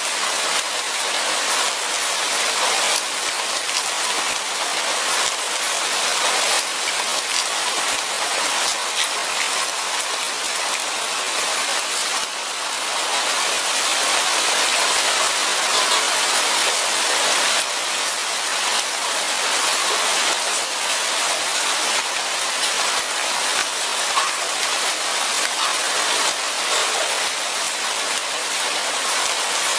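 Steady light rain falling in a forest, a continuous even hiss of many fine drops pattering on leaves and ground.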